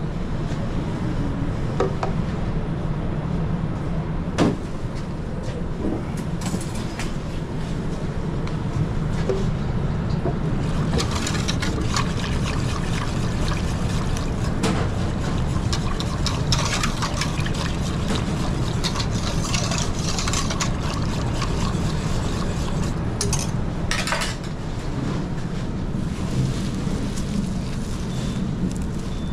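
Commercial kitchen working noise: a steady low hum, with scattered clicks and knocks of kitchen work and a stretch of liquid-like hiss through the middle.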